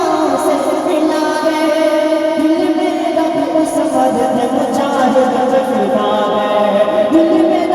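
Islamic devotional ringtone: a voice sings long, drawn-out melodic notes in a chant-like style.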